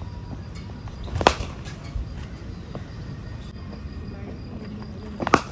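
Sharp cracks of a new leather cricket ball striking a bat: one loud crack about a second in, and a quick double crack near the end.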